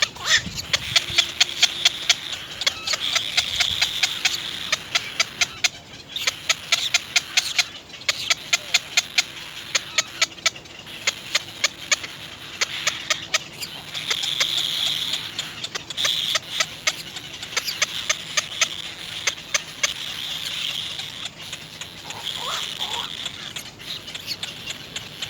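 Baby birds in a nest begging: runs of short, sharp chirps, several a second, over a continuous high shrill cheeping.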